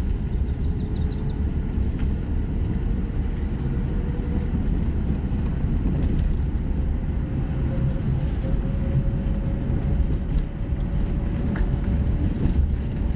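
Car heard from inside the cabin while driving on a wet road: a steady low rumble of engine and tyres, with a faint whine that rises slowly in pitch.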